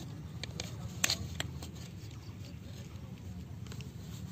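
Perforated plastic baskets and a bamboo tube being handled and fitted together: scattered light clicks and rattles of plastic, the sharpest about a second in.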